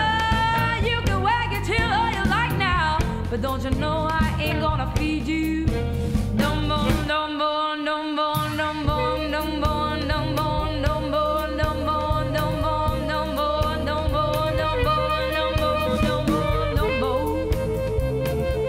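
Live blues band music during an instrumental stretch: a lead electric guitar solo with bent, sliding notes at the start, then held and repeated notes over the band. The low end drops out briefly about seven seconds in.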